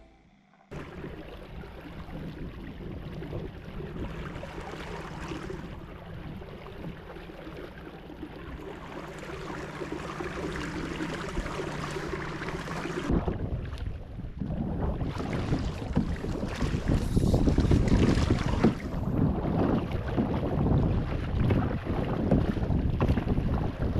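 Wind buffeting the microphone and water washing against a canoe's hull as it is paddled across choppy open water. It gets louder and rougher about halfway through.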